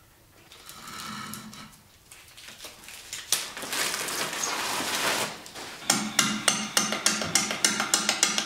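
Plastic wrapping rustling as it is pulled off a large green elm bowl blank. About six seconds in, the blank spins on the lathe and a bowl gouge starts roughing it, with sharp knocks about three or four a second as the tool strikes the out-of-round live-edge blank once each turn, over a low hum.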